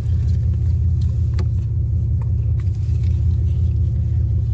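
Steady low rumble of a car engine idling, heard from inside the parked car's cabin. A few faint light clicks come as a swimsuit and its tag are handled.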